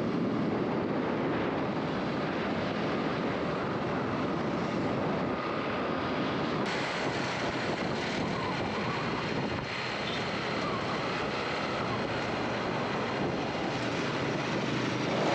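Steady rushing noise of a moving vehicle, with wind buffeting the microphone.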